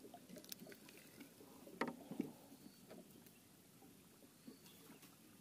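Faint clicks and knocks of fishing tackle handled in a wooden boat, the two sharpest close together a little under two seconds in.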